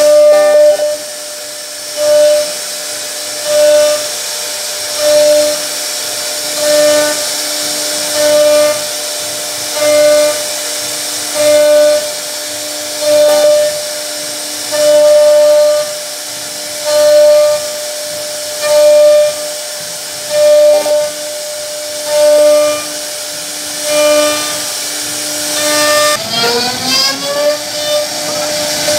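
CNC wood router carving a wooden panel: a steady high spindle whine and cutting hiss. Over it, a pitched tone from the drive motors pulses about every second and a half as the cutter makes each repeated stroke, and it rises in pitch near the end.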